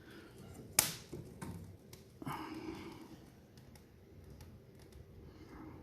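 Quiet handling at a cast-iron wood-burning firebox: one sharp knock about a second in, then a brief soft rustle.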